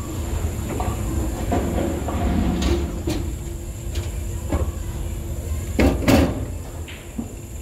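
Bowling ball rolling down a wooden lane with a steady low rumble, then striking string-tethered pins (QubicaAMF Edge string pinspotter) with a loud clatter about six seconds in.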